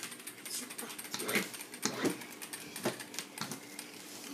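Plastic toy battling top spinning in a plastic dish: a faint steady whir with a few scattered knocks.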